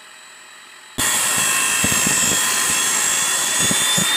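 Table saw ripping a thin wooden slat: a loud, steady whine and rush of cutting noise starts abruptly about a second in. A few low knocks sound as the wood is fed through.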